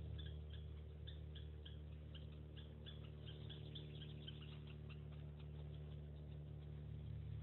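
Small tinder fire faintly crackling with irregular ticks and pops, over a steady low hum.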